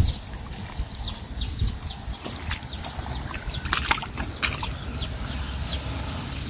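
Sloshing and splashing of shallow muddy water as a rubber boot steps through it and hands work through wet rice straw and mud, with short chirps scattered through.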